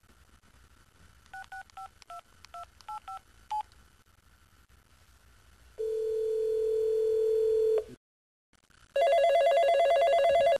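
Telephone keypad tones as a number is dialled, about ten quick beeps, then a steady ringback tone held for about two seconds. After a short silence, a cordless office desk phone rings loudly with a fast warbling electronic ring that stops near the end as it is picked up.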